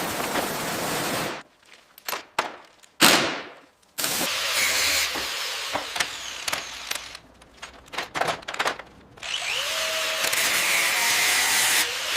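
Short bursts of power-tool noise cut one after another, with abrupt stops between them and a brief sweeping whoosh about three seconds in.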